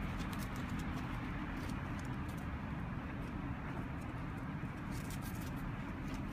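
Steady low outdoor background noise with scattered light ticks and patters running through it.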